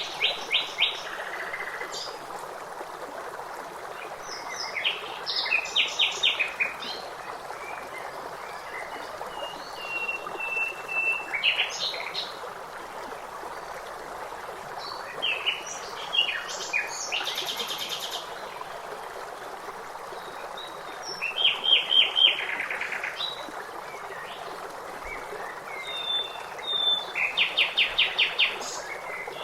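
Songbirds singing short phrases of fast repeated notes, about every five seconds, one of them with a held whistle, over a steady rush of flowing water.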